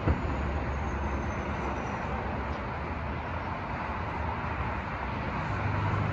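Steady road traffic rumble and hiss, with a single sharp firework bang just after the start.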